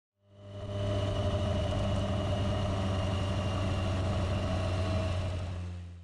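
Motorcycle engine running steadily at an even speed, fading in at the start and fading out at the end.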